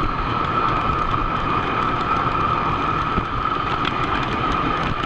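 O scale model train running on three-rail track, heard from a camera riding on the train: a steady rolling rumble of wheels on rails with a constant whine, and a few light clicks.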